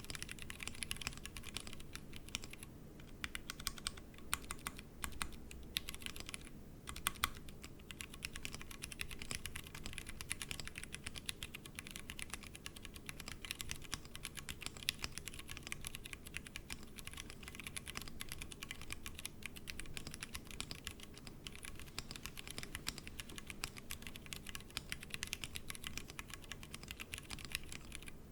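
Continuous fast typing on a Tofu60 60% mechanical keyboard with stock Cherry MX Brown tactile switches, the keyboard sitting on a desk mat. Rapid, dense keystrokes with two brief pauses a few seconds in.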